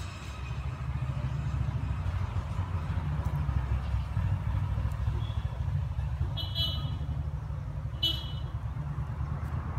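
Honda Activa scooter's single-cylinder four-stroke engine idling with a steady, even low putter. Two short high chirps come about a second and a half apart near the end.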